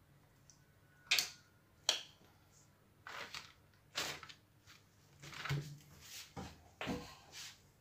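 A plastic drill housing half is handled and set down on a paper-covered bench: irregular light knocks and clicks, with paper and glove rustling between them.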